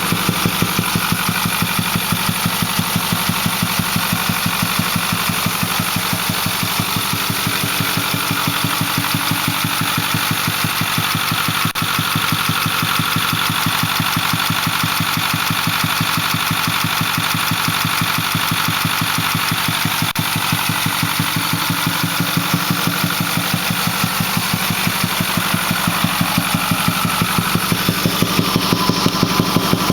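Ford 6.4L Power Stroke twin-turbo V8 diesel running at a steady speed, with a fast, even thumping from the intake side. The owner cannot explain the thumping: the engine runs smoothly, makes full boost and has full power.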